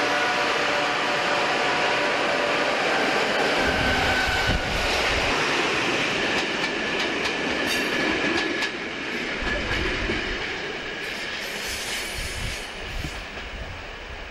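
BR Class 85 electric locomotive passing: a steady electrical roar with several whining tones. This is the loud equipment noise that earned the class the nickname "Roarers". It gives way to coaches rolling over rail joints and points with clicks and thumps, fading as the train moves away.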